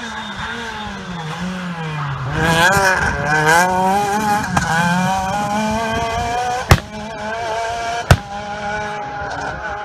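Rally car engine driving hard through a bend and away up a hill, the revs climbing and dropping through gear changes. Two sharp bangs about a second and a half apart come near the end.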